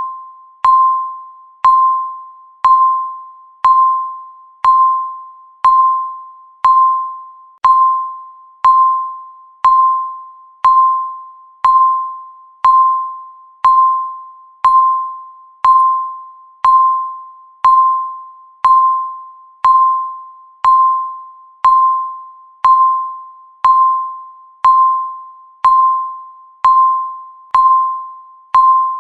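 Countdown timer beep: a single tone struck once a second and fading before the next, repeating at an even one-second pace.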